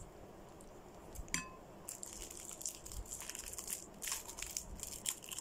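Eating sounds: light crunching and plastic crinkling as a chocolate-coated ice cream bar is bitten and its plastic wrapper handled, a string of short, quick crackles that thickens about two seconds in.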